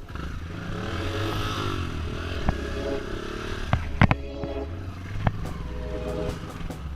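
Trail motorcycle engine running, its pitch rising and falling a little, with several sharp knocks and clatter over it.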